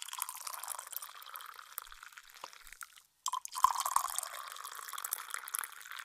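Cardboard box being cut open: a scratchy, crackling scraping in two long strokes, with a short break about three seconds in.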